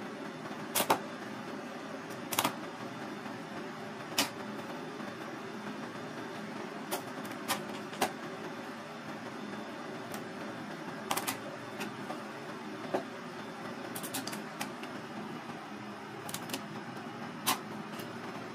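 Chef's knife cutting through crab leg shells on a plastic cutting board: sharp, short clicks and cracks at irregular intervals of one to two seconds, over a steady background noise.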